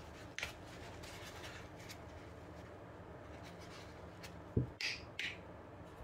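Hands handling a plastic squeeze bottle of liquid metal polish: a sharp click about half a second in, then near the end a dull knock and two short spluttering squirts as polish is squeezed onto a paper towel.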